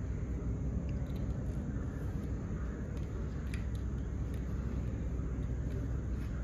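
Steady low background rumble with a few faint clicks about three seconds in.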